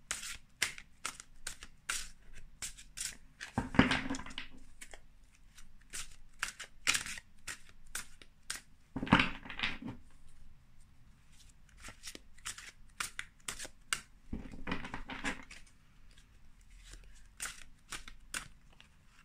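A deck of oracle cards shuffled overhand by hand: a long run of quick, light card clicks and slaps, with three longer rustling shuffles about four, nine and fifteen seconds in.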